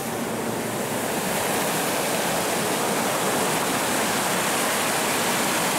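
Ocean surf: waves breaking and washing in a steady rush of noise.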